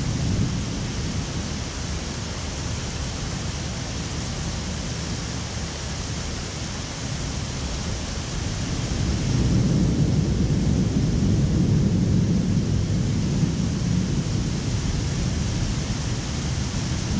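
Steady hiss of typhoon rain, with a low rumble of thunder that swells about halfway through and rolls on for several seconds.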